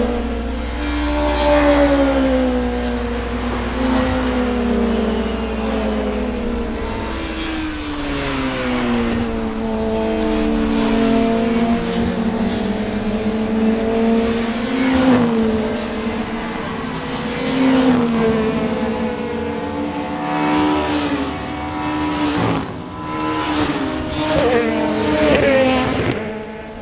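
Racing touring-car engines revving up and down through gear changes, the pitch repeatedly climbing and dropping, with several cars' engine notes overlapping.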